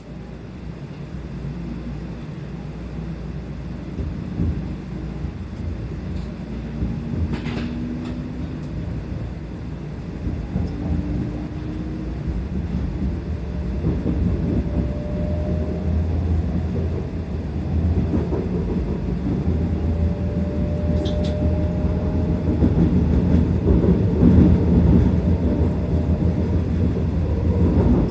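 Kyushu Shinkansen train heard from inside the car while it gathers speed: a low running rumble that grows steadily louder, with faint motor whine tones rising slowly in pitch several times.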